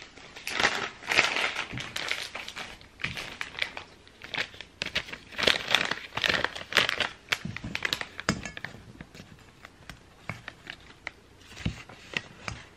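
Clear plastic bag crinkling and rustling as it is handled and opened, in dense irregular bursts for most of the first eight seconds, then thinning to fainter scattered crinkles.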